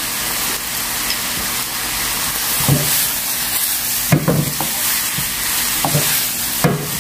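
Bell peppers, onion and seafood sizzling steadily in a hot frying pan as they are stir-fried with a wooden spatula and tossed. A few dull knocks of spatula and pan come about three seconds in, near the middle and near the end.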